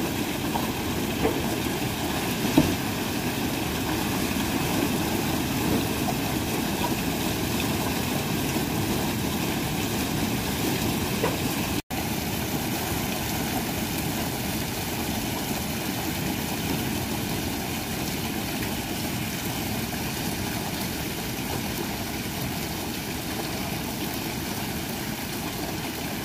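A boat engine running steadily at idle, a constant low drone, with a single sharp knock about two and a half seconds in and a split-second dropout about twelve seconds in.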